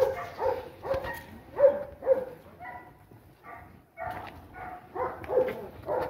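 An animal calling in a string of short, pitched yelps, about two a second, with a brief pause midway.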